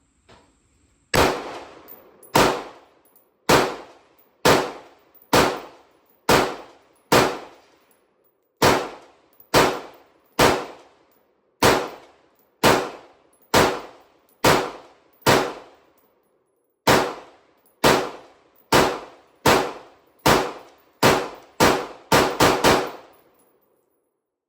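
5.56 AR-15-pattern rifle fired semi-automatically: about two dozen single shots roughly a second apart, quickening into a fast string of shots near the end.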